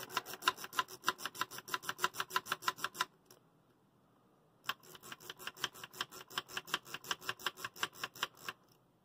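Tone-control slide pots (faders) on a Marantz 1122DC amplifier being worked quickly up and down to spread freshly sprayed contact cleaner along their tracks. The sliders click rapidly and evenly, about eight clicks a second, in two runs of about three seconds each with a short pause between.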